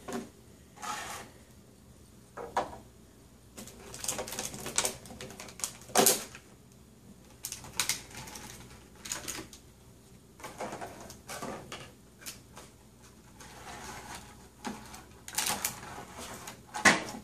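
Clear plastic blister packaging crackling and clicking in short irregular bursts as hard plastic toy cupcakes are pulled out of it and set down on a wooden table, with a sharper click about six seconds in and another near the end.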